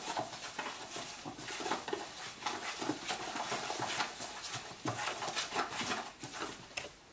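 Gloved hand mixing a wet paste of curry paste, sugar, fish sauce and water in a plastic tub: an irregular run of soft wet squishes and rubs of the glove against the tub.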